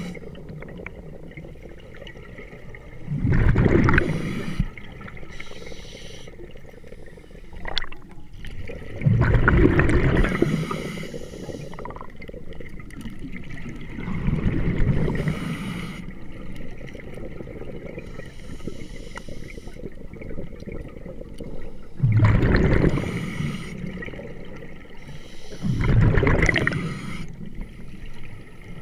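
A scuba diver's exhaled breath bubbling out of the regulator underwater: five low bubbling bursts of a second or two each, several seconds apart, with a fainter hiss between them.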